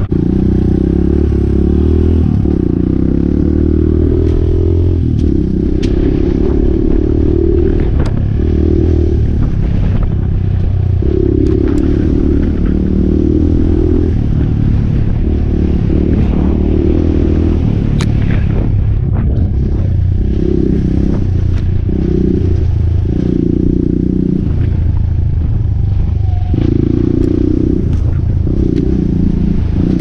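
2017 Suzuki DR200's single-cylinder four-stroke engine running through an FMF Q4 slip-on exhaust under way on a dirt trail, its note stepping up and down with throttle and gear changes. Occasional sharp clatter and knocks from the bike over the rough ground.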